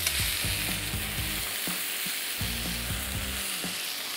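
Thick beef steaks sizzling steadily as they sear in a hot pan, while tongs move the meat about in the pan.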